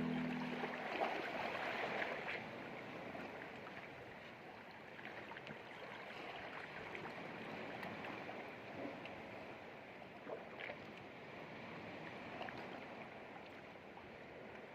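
Gentle sea water lapping and washing, faint, with small irregular splashes and gurgles. The last of a music track fades out in the first second.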